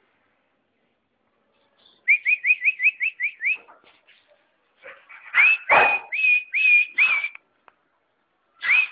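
A person whistling to call a dog: a quick run of about eight short upward whistles about two seconds in, then about five longer whistles that rise and then hold.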